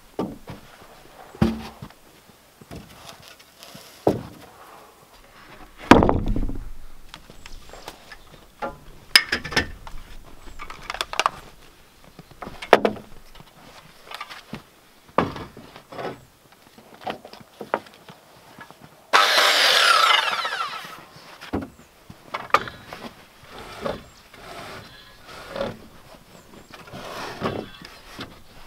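Wooden boards knocked and set down on a timber frame: a series of knocks, the heaviest thump about six seconds in. About two-thirds of the way through, a handheld electric circular saw runs for about a second, its whine falling as it spins down.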